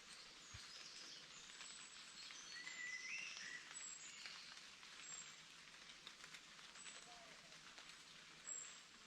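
Faint outdoor ambience with a few short bird chirps, loudest about three seconds in.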